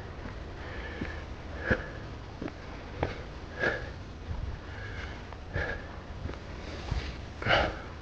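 A walker's heavy nasal breathing, a sniffing breath about every two seconds, with faint footsteps on a dirt trail between the breaths.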